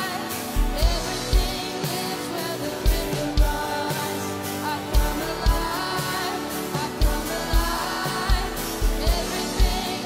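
Live worship band playing: a girl sings the lead vocal with backing singers, over acoustic guitar and a drum kit whose kick drum thumps steadily about twice a second.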